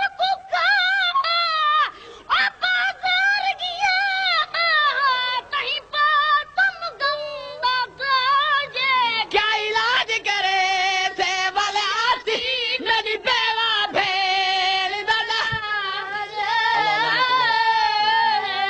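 A man's high voice chanting a Shia mourning lament into a microphone, his pitch wavering on held notes and ending on a long sustained note.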